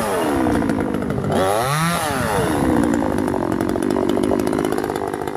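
Chainsaw engine revving: its pitch falls from a rev, climbs again about a second and a half in, drops back, then holds steadier at a lower pitch.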